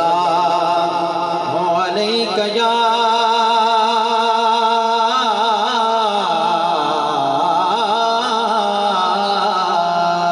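A single voice sings a devotional naat in long held notes, with wavering, ornamented turns partway through and again near the end.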